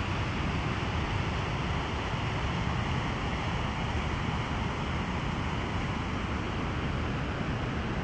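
Steady rushing noise of the waterfall's water, with a low rumble of wind on the microphone.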